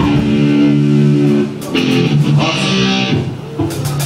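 Electric guitar through an amplifier, ringing sustained chords that change about a second and a half in, with a few short sharp hits in the second half.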